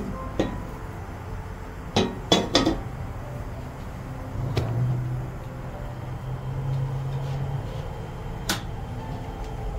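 Kitchenware clinking and knocking: a few sharp strikes of utensils against dishes and a pan, three of them close together about two seconds in. A low steady hum runs for about three seconds in the middle.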